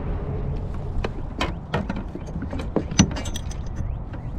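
A run of sharp, irregular clicks and knocks, the loudest about three seconds in, from a just-caught catfish being handled and unhooked aboard a kayak.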